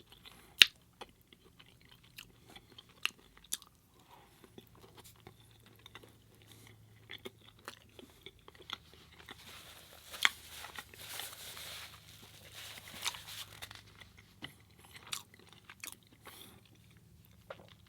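Close-miked chewing and biting of a Beyond Meat burger patty with spaghetti sauce and cheddar in a bread bun, with sharp mouth clicks scattered throughout and a denser stretch of chewing a little past halfway.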